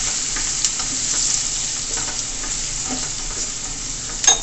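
Chopped peppers, onion and herbs sizzling in hot oil in a stainless steel sauté pan, stirred with a wooden spoon that makes soft scraping knocks. Near the end comes a sharper knock with a short metallic ring.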